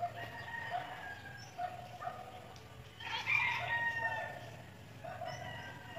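A rooster crowing: one louder crow about three seconds in, lasting a little over a second, with fainter calls throughout.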